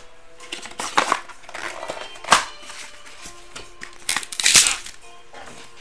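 A small cardboard box of trading cards handled by hand: rustles and scrapes of cardboard, a sharp knock about two seconds in, and a longer scraping sound a little after four seconds.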